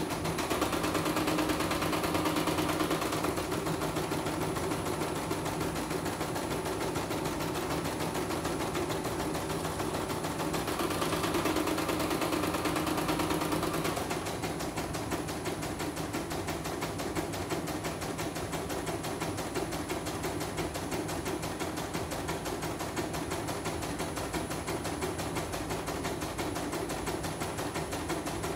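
Portable computerized embroidery machine stitching a design: a rapid, even chatter of needle strokes. It is louder for the first few seconds and again for a few seconds around the middle. This is a test run after the upper thread tension was raised because it had been too loose.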